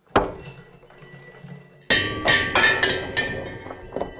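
Struck percussive sound with a musical ring: one sharp hit that dies away, then about two seconds in a quick run of several more hits with steady ringing tones over them.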